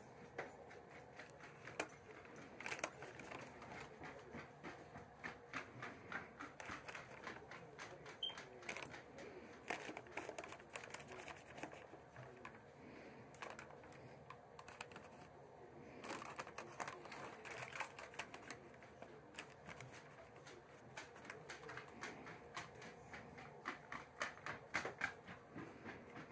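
Faint, irregular clicks and light taps in quick clusters: a paintbrush working in metal watercolour tins and brushing and tapping against a paper lantern as it is handled.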